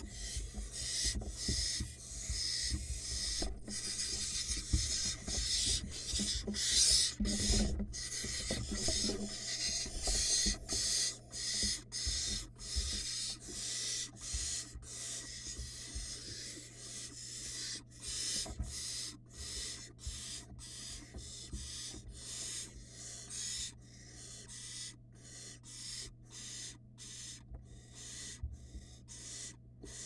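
Barn owl nestlings giving rasping, hissing food-begging calls, one after another about twice a second, as the adult brings prey into the nest box. The hisses get shorter and fainter over the last several seconds.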